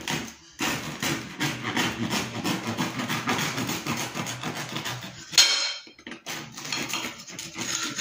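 Knife sawing through the hard, crunchy crust of a freshly baked Italian-style loaf in quick repeated back-and-forth strokes, rasping and crackling, with one sharper, louder knock about five seconds in.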